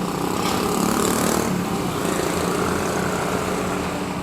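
Engine running steadily with a low hum, swelling a little about a second in.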